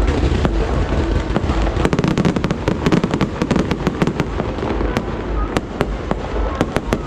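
Aerial fireworks going off in a dense barrage: rapid sharp cracks and crackle over a low rumble, thickest in the middle stretch and thinning toward the end.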